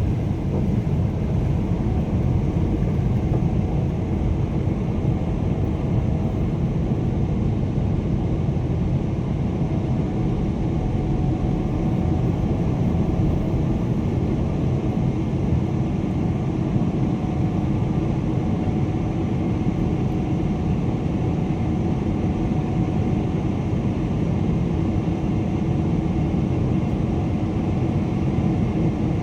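Steady airliner cabin noise: a constant low rumble of the engines and airflow heard from inside the passenger cabin, with a faint steady hum on top.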